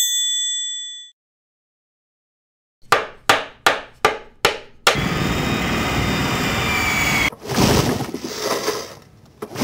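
A bright bell-like ding as a lightbulb idea pops up, fading within about a second. After a pause come six sharp knocks in even succession, then a loud, steady rushing noise that breaks off and resumes more roughly, fading near the end.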